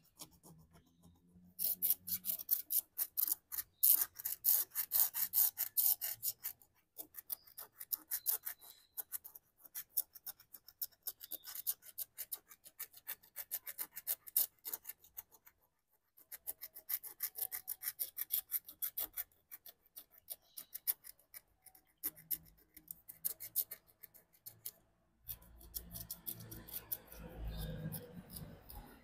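Wooden stylus scratching the black coating off a scratch-art card in quick, rapid strokes, with brief pauses between runs. Near the end a low rumbling sound sits under the scratching.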